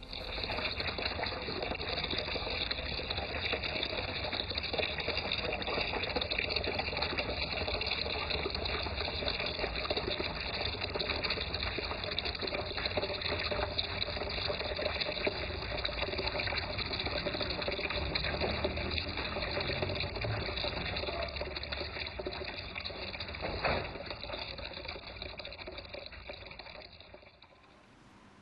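Mains tap water pouring steadily from a tap into a plastic basin, a continuous splashing fill that fades out near the end, with one short knock about three-quarters of the way through.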